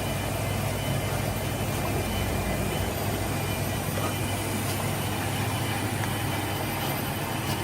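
Snack bar production line machinery running with a steady hum and hiss; a deep low rumble underneath drops away about three seconds in.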